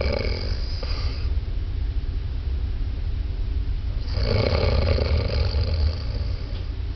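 A man snoring in his sleep: one snore fading out about a second in, then a longer one starting about four seconds in and lasting nearly three seconds, over a steady low rumble.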